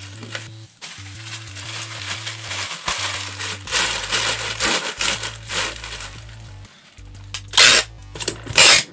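Plastic wrapping crinkling as hands press it down into a cardboard shipping box, over background music with low sustained notes. Near the end come two loud rasps of packing tape pulled from a handheld tape dispenser.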